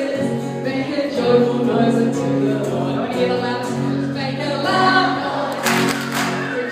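A church congregation singing together, many voices holding sung notes. There is a brief rush of noise about six seconds in.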